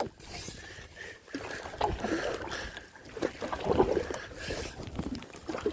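Wooden single-blade paddle strokes dipping and splashing in lake water beside an outrigger canoe, with water washing along the hull between strokes.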